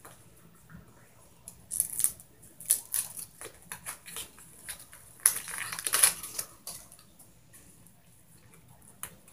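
A flurry of irregular close clicks and rustling scrapes, starting about a second and a half in and loudest about five to six seconds in, then dying away, over a faint steady low hum.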